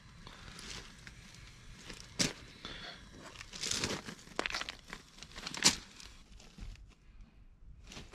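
Boiled lobster being pulled apart by hand: its shell cracks and crunches with tearing, crinkling noises, a few sharp cracks standing out, the loudest a little past halfway.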